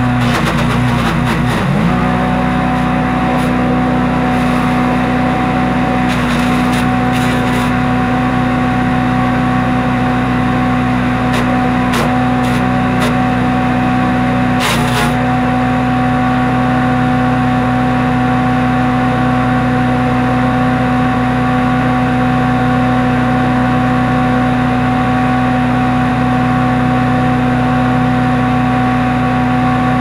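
Harbor Freight Predator wood chipper's small single-cylinder gas engine running steadily at speed. Its pitch sags briefly about a second in and again halfway through as it takes the load of branches, with a few short sharp cracks of wood being chipped.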